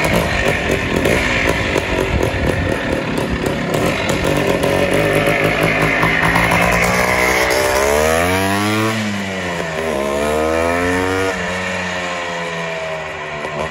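Greeves two-stroke single-cylinder motorcycle being ridden close by, its engine buzzing, then revving up and down twice with rising and falling pitch as it accelerates away.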